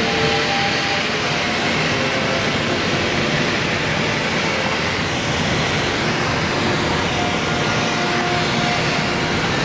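Steady cabin noise of a small single-engine propeller plane in flight: the engine and propeller running at constant power under a loud rush of airflow.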